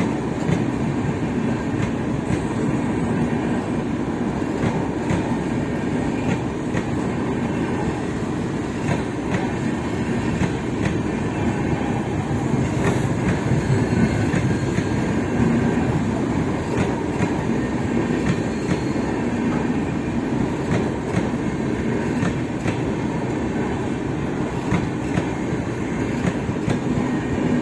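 Passenger express train rolling past, a steady rumble of coaches with the wheels clattering over rail joints in frequent sharp clicks.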